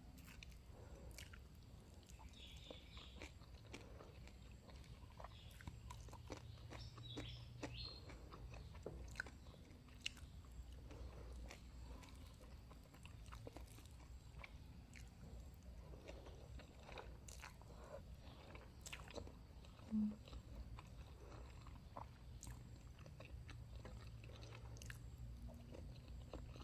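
Faint close-up chewing and biting of a person eating, with scattered small crunchy clicks over a low steady hum, and one brief louder blip about twenty seconds in.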